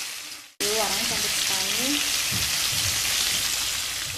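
Flour-coated chicken pieces deep-frying in hot oil in a wok, with a steady sizzle. It fades out and drops to silence for a moment about half a second in, then comes straight back.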